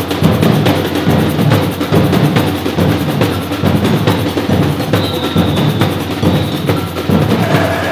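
Percussion music: drums playing a busy, steady rhythm.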